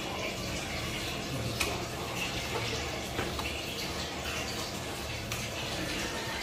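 Soft handling noise as wet cheese curd is scooped and pressed into cheesecloth on a stainless steel table, with a few faint taps, over a steady background hiss.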